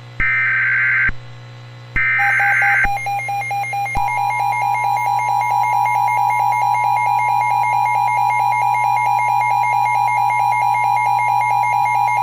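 Emergency Alert System broadcast: the last two bursts of the SAME digital header, each a short warbling data screech, then the EAS attention signal, a steady tone that becomes a two-note tone about four seconds in and holds to the end. It marks the start of a weather warning message.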